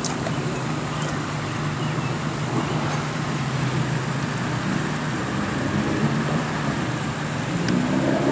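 A motor running steadily with a low, constant hum under a general outdoor rush of noise.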